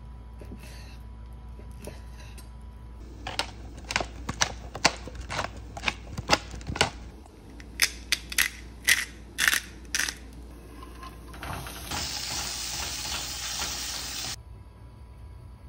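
A knife chopping raw chicken thighs on a wooden cutting board: a string of sharp, irregular knocks, about two a second. About twelve seconds in, chicken pieces and garlic sizzle in oil in a frying pan for a couple of seconds, then the sizzle cuts off.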